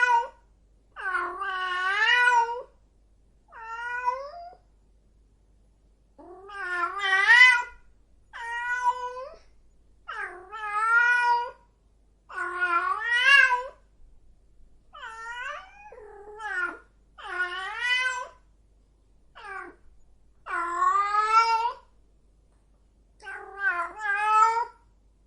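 A female cat in heat yowling: about a dozen drawn-out, wavering calls with short pauses between them.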